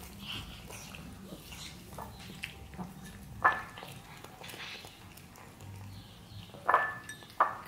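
Cats crunching and chewing dried fish out of glass bowls. Three sharp ringing clinks of a glass bowl being knocked stand out, one about halfway through and two close together near the end.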